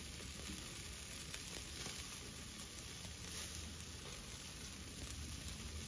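Chicken pieces sizzling on the grate of a charcoal grill over hot coals: a steady hiss with small scattered crackles.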